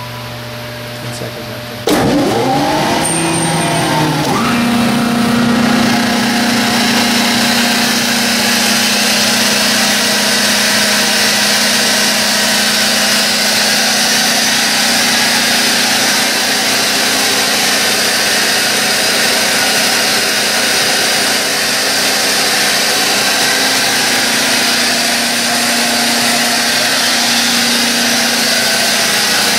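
Mattei C300MV 75 hp rotary vane air compressor starting: a low hum, then about two seconds in the electric motor kicks on suddenly and spins up over a couple of seconds, rising in pitch. It then settles into a loud, steady run with a constant hum and air noise.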